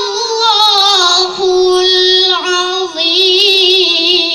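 A girl's voice chanting Quranic recitation (tilawah) in the melodic, drawn-out competition style, with long held, wavering notes and a brief break about halfway through.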